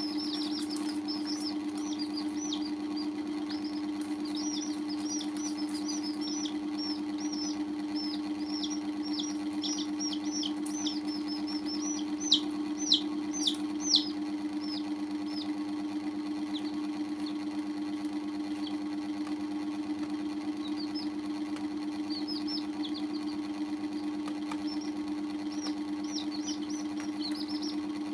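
Baby chicks peeping: a steady stream of short, high, downward-sliding cheeps, several a second, with a few louder ones about halfway through, over a steady low hum.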